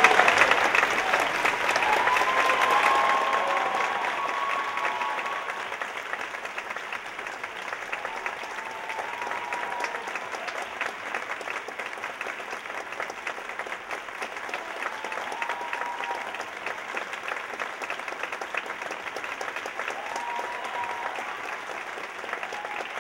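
Audience applauding, loudest at first and easing off after about three seconds, then steady.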